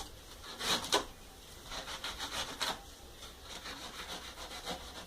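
Styrofoam block being carved by hand: a tool scraping and rubbing the foam in repeated, uneven strokes, a couple of louder ones about a second in.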